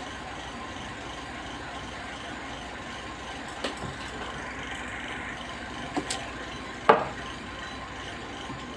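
Pigeon induction cooktop running at 2100 W with a steady hum under a steel saucepan. Three short knocks as the pan is handled and lifted off, the loudest near the end.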